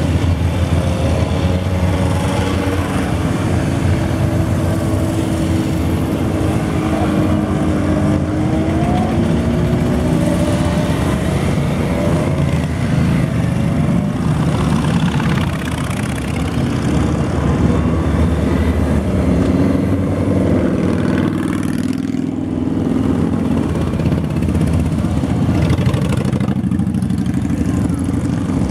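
A steady stream of motorcycles riding past one after another, their engines running continuously. Overlapping engine notes rise and fall in pitch as each bike passes.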